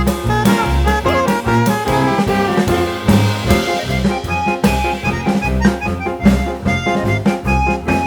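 Instrumental background music with horns and a steady drum beat.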